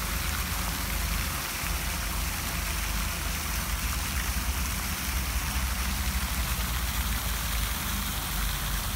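Fountain jets splashing into the basin in a steady rush of water, with wind rumbling on the microphone.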